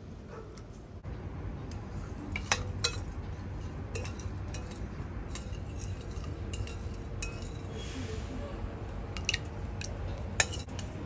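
A metal spoon stirring crushed tomato sauce in a bowl, clinking against the bowl several times in separate sharp clinks, the loudest about two and a half seconds in and near the end.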